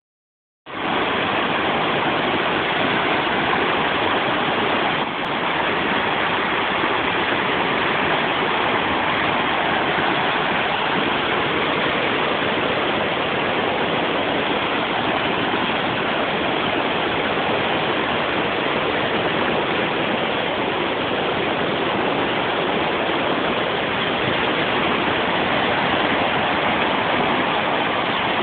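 A stream in spate after a day of heavy rain: floodwater rushing and churning over rocks and a fallen log, a steady, loud wash of white water.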